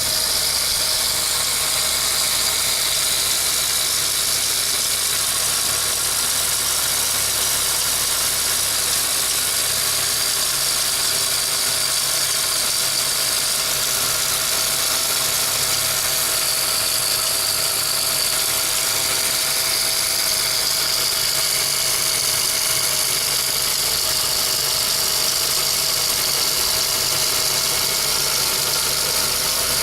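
Vehicle engine idling steadily, with a strong steady hiss high above the engine note.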